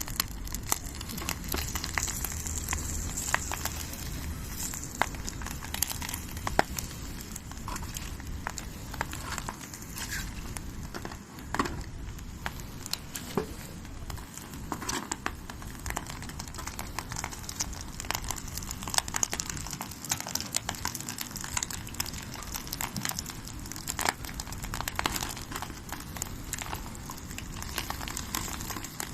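Wood campfire burning, crackling with many irregular sharp pops over a steady hiss.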